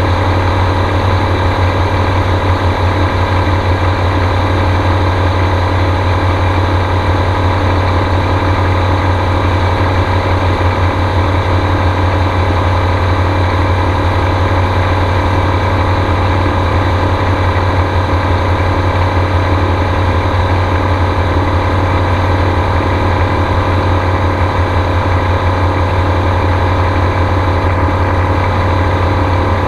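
Gyrocopter's engine and pusher propeller running at a steady speed, heard on board as a loud, even drone with no change in pitch.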